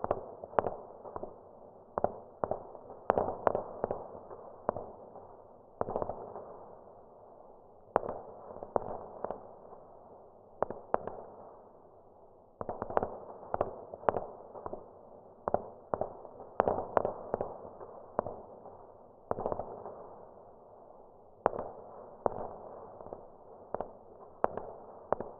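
Muffled battle gunfire: irregular single shots and quick volleys, each with an echoing tail.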